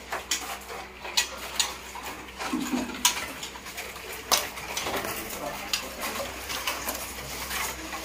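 Irregular light clicks and taps from rows of occupied bird cages, caged birds hopping on the bars and knocking at the plastic feed cups.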